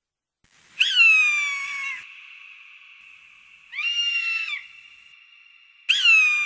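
Three high, drawn-out animal calls. The first and last last about a second each and fall slightly in pitch; the middle one is shorter and rises then falls.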